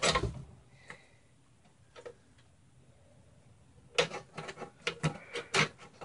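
Small clicks and taps of computer parts and cables being handled inside a small PC case: a knock at the start, two single ticks, then a quick run of sharp clicks in the last two seconds.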